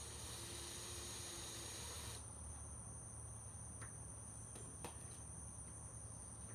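Cordless drill whirring softly for about two seconds while backing out a helmet facemask screw, then stopping, followed by a couple of light clicks. A steady high whine sits underneath.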